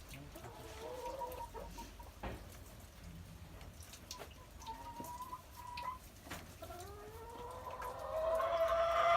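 Chickens calling from close by in a few drawn-out calls, the longest and loudest rising in pitch near the end, with a couple of light knocks in between.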